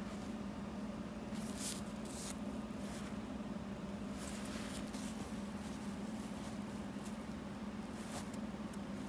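Brief, soft rustles of linen-blend trouser fabric (linen, polyester, polyurethane) being handled and turned over, over a steady low hum.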